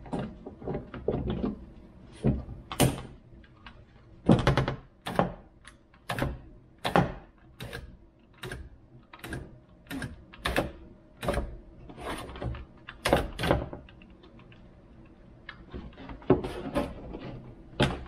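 Irregular metal knocks and clunks from inside a 2012 Nissan Rogue's opened front door as the window glass and its rails are worked up and down by hand. A few of the knocks are loud and ring briefly.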